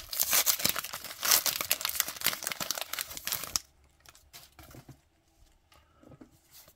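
A Topps Archives baseball card pack wrapper being torn open and crinkled for about three and a half seconds, then it stops suddenly, leaving only faint light rustles.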